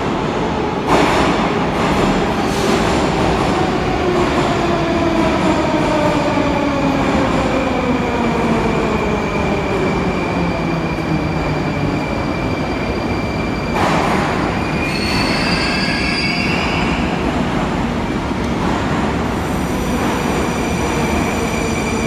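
Moscow Metro train braking into the station: its motors whine in a slowly falling pitch over about ten seconds. About fourteen seconds in comes a short hiss, then a brief high squeal as it comes to a stop.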